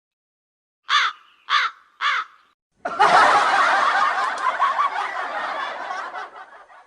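Three short, harsh calls about half a second apart, then a recorded crowd laughing for about four seconds and fading out: a stock laugh-track sound effect.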